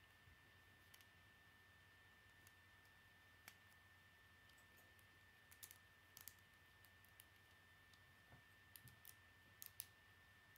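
Faint, irregular clicks of plastic Lego pieces being handled and pressed together by hand, coming singly and in small clusters with pauses between.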